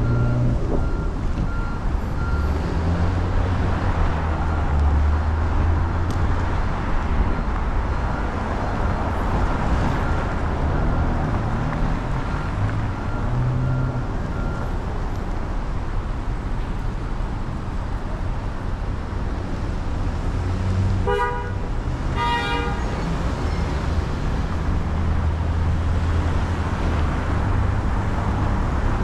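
Steady city traffic noise with a low rumble, and a car horn giving two short toots about twenty-one and twenty-two seconds in.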